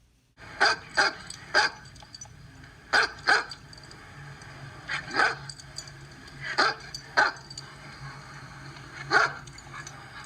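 A dog barking: about ten sharp barks in groups of one to three, over a steady low background hum.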